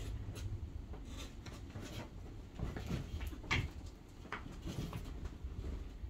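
Two cats play-fighting on a blanket-covered bed: irregular scuffling, rustling and soft thumps of paws and bodies on the fabric.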